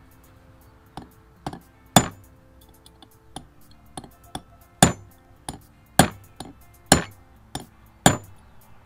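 Hammer blows on a pin punch, driving the spider-gear center pin out of a 2021 Honda Pioneer 520 differential carrier: about a dozen sharp metallic strikes with a ringing tone after each, five of them heavy, roughly one a second. The pin is stuck fast, held by a staked dimple in the case.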